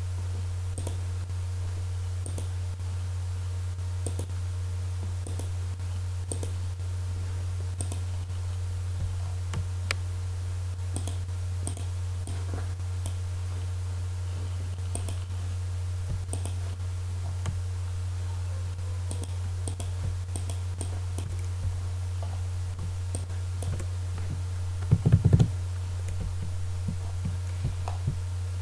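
Scattered computer mouse and keyboard clicks over a steady low electrical hum, with a quick cluster of louder clicks about 25 seconds in.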